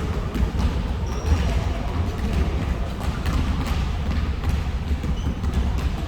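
Basketball being bounced on a gym floor with scattered thuds of play, a couple of short high squeaks of sneakers, over a steady low rumble.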